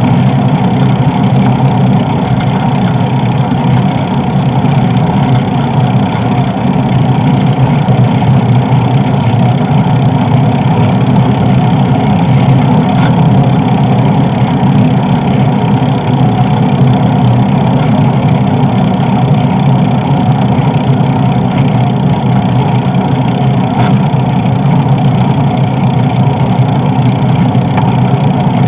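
Steady, loud rushing of wind and road noise from a bicycle riding along at speed, picked up by a bike-mounted camera's microphone.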